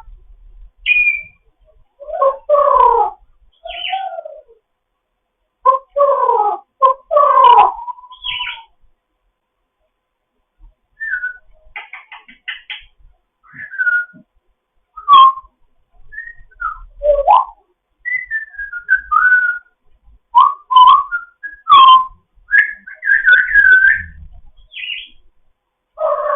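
African grey parrot whistling and chattering in a string of short calls: gliding whistles, clicks and a few voice-like phrases, with a pause of a couple of seconds about a third of the way in.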